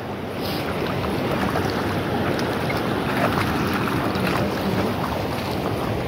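River water rushing steadily.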